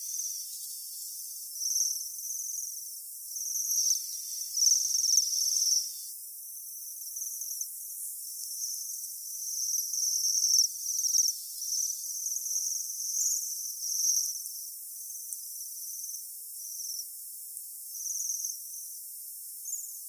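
Japanese waxwings calling: thin, high-pitched trills, several overlapping, coming in runs of a second or two with short gaps.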